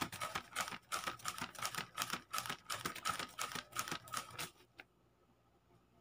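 A fanned-out bundle of paper banknotes waved quickly as a hand fan, flapping about four or five times a second, then stopping about four and a half seconds in.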